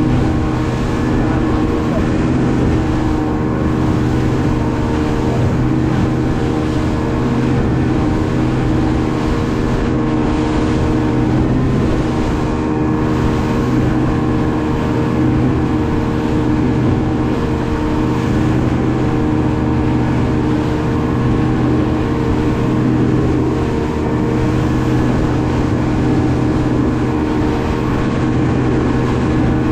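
Speedboat engine running steadily at speed, an even engine drone under a constant rush of water and spray along the hull.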